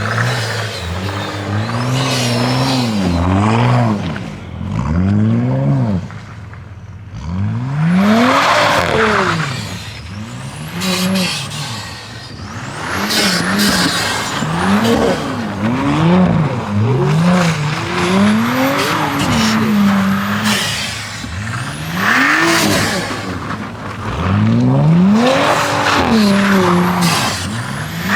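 Car engine revving up and down over and over, about one rise and fall every one to two seconds, with the hiss of tyres spinning and sliding on snow, as when doing donuts.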